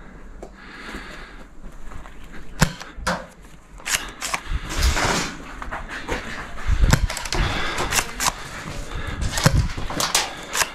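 Footsteps crunching on gravel with a scattering of sharp cracks and knocks, about a dozen, most of them in the second half, the sounds of blaster shots and hits during a game.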